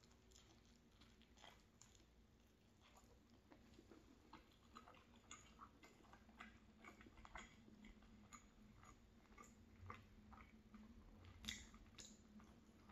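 Faint chewing of a mouthful of soft flatbread wrap filled with scrambled egg, potato and cheddar: small, wet mouth clicks, with a couple of sharper ones near the end.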